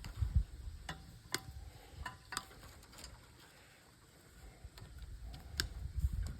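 Wire cutters snipping through the wiring inside an old television set: several sharp snips about a second or so apart, some with a short metallic ring, amid low handling rattle.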